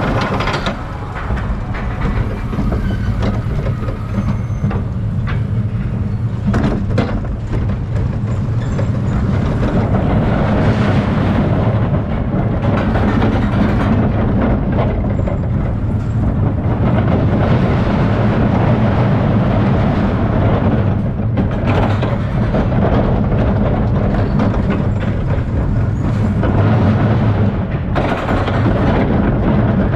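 E&F Miler steel roller coaster train running the course at speed: a steady, loud rumble of wheels on the steel track, broken all through by sharp clacks and jolts from a rough-riding track.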